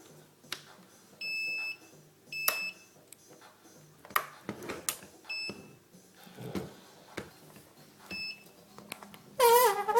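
Radio-control transmitter giving low-battery warning beeps: four beeps, the first two longer, among light clicks and knocks. Near the end comes a short, louder wavering tone.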